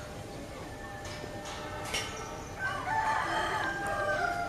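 A rooster crowing once, a single long call of nearly two seconds that starts a little past the middle, over a faint steady background.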